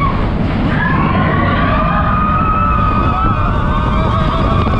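Roller coaster train running fast along the track: a loud, rough rumble of wheels and rushing air. From about a second in, a high, wavering note is held above it for several seconds.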